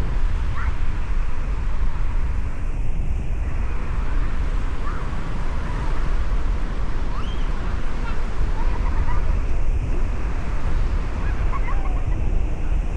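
Sea surf washing onto the beach, with steady wind buffeting the microphone.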